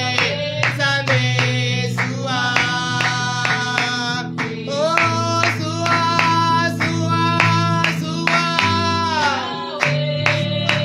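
Worship music: a woman singing long held lines over guitar and bass, with hand clapping on the beat about three times a second.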